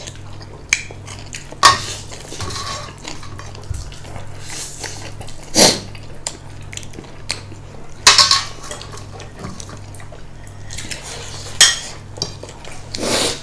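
Utensils clinking and scraping against dishes, with a handful of sharper clinks a few seconds apart, over a faint steady low hum.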